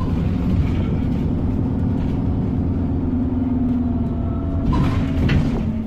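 Inside an Alexander Dennis Enviro400 double-decker bus on the move: a steady engine drone over road rumble, its pitch drifting up and then back down. A few rattles and knocks from the bodywork come near the end.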